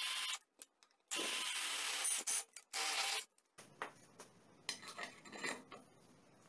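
Cordless drill boring a hole through a thin duralumin plate in three short runs, each a steady whirring grind that stops abruptly. Then faint clicks and scrapes as a bent wire hook is threaded through the new hole.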